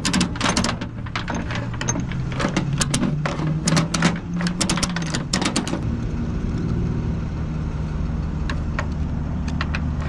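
Flatbed tow truck's engine running steadily at idle. Over it, a quick irregular run of sharp metallic clicks and rattles lasts for about the first five seconds, then a few scattered clicks follow.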